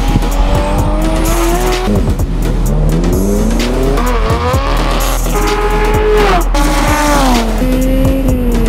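Race car engines running hard on a circuit: the engine note climbs under acceleration, then drops in steps through gear changes and passes, with some tyre noise. Music plays faintly underneath.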